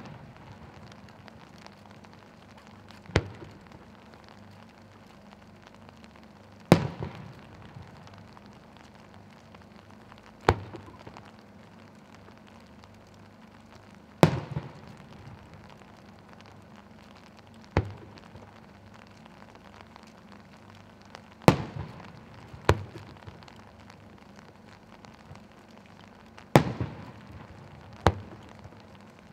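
Aerial firework shells going off one after another: about nine sharp booms, spaced every three to four seconds, two of them coming closer together near the end, several trailing off in echo.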